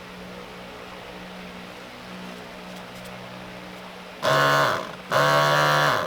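A steady low hum, then two loud cow moos about four and five seconds in, the first short and the second about a second long, each dropping in pitch at the end.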